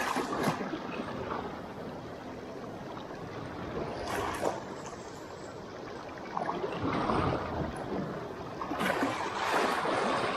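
Small waves lapping and splashing against shoreline rocks in shallow water, a steady wash that swells into louder splashes at the start, about four seconds in and again near the end.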